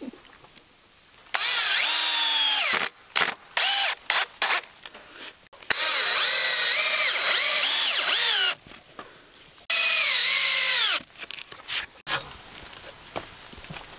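Cordless drill driving long screws into wooden framing: several runs of motor whine with short trigger blips between, the longest in the middle. The pitch sags and wavers as each screw bites and falls away as the trigger is released.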